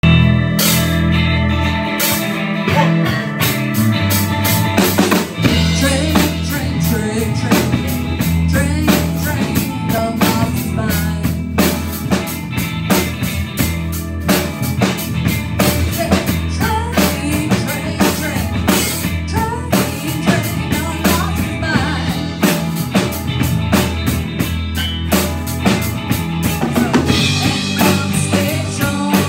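Live rock band playing: a drum kit keeping a steady beat with snare and bass drum, electric guitar, electric bass and keyboard, with a woman singing into the microphone.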